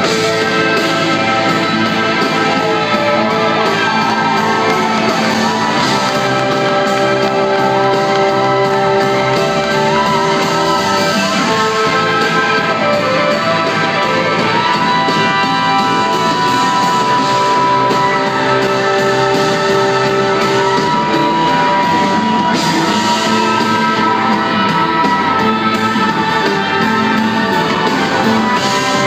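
A live rock band playing, with an electric guitar lead of long held, bending notes over the band.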